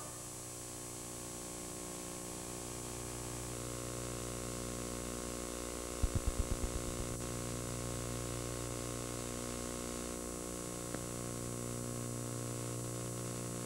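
Steady electrical hum with a light hiss from an analog videotape's audio track, with no programme sound on it. About six seconds in a short run of low thumps fades out within a second, and a faint click comes near the end.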